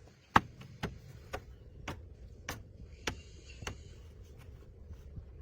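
A steady run of sharp taps or knocks, about two a second, the first the loudest, over a low steady hum.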